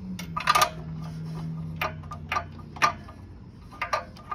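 Hand socket ratchet clicking in short, irregular strokes, a few clicks at a time, as a new spark plug is turned into the generator engine's cylinder head.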